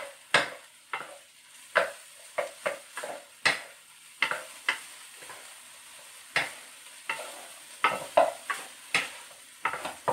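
Wooden spatula scraping and knocking against a nonstick wok as fried rice with diced vegetables is stir-fried and its clumps broken up, in quick irregular strokes over a faint sizzle.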